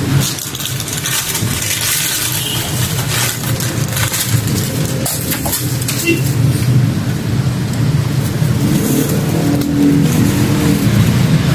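Rustling and crackling of a black plastic bag and dry, brittle debris being handled and pulled from an opened tomb niche, over a steady low hum.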